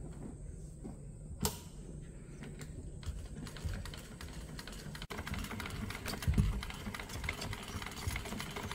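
1953 Singer hand-crank sewing machine stitching through cloth: a fast, even clatter of the needle and feed mechanism from about three seconds in. Before that come a few separate clicks, one sharp, as the cloth is set under the presser foot.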